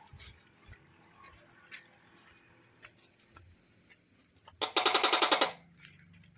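Tokay gecko giving one loud, pulsing call about four and a half seconds in, lasting about a second, over faint scattered clicks.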